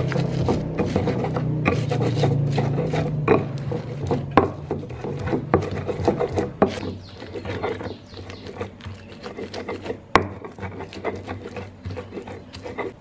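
Stone pestle (ulekan) crushing and grinding chilies, tomatoes, shallots and garlic against a stone mortar (cobek) to make sambal: irregular knocks of stone on stone mixed with wet grinding scrapes, quieter in the second half.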